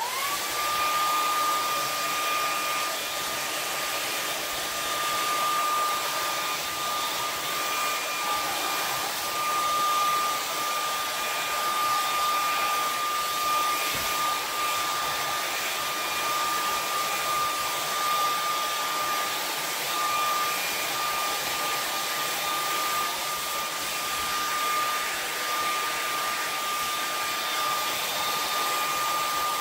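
Handheld hair dryer switched on, its motor whine rising as it spins up, then running steadily with a constant rush of air.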